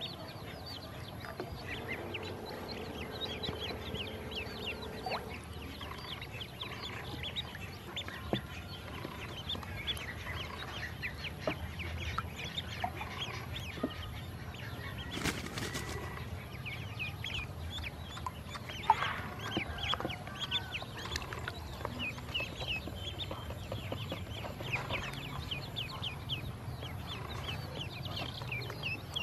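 A group of domestic ducklings peeping constantly: many short, high chirps overlapping one another, with a single sharp click about halfway through.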